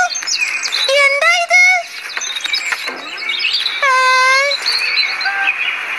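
Cartoon birds chirping with short high twitters, over a cartoon character's short wordless vocal cries, the longest about four seconds in.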